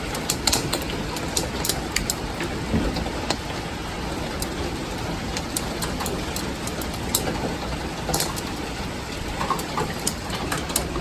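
Hailstorm: a steady rush of hail and heavy rain, with many sharp, irregular clicks of hailstones striking hard surfaces.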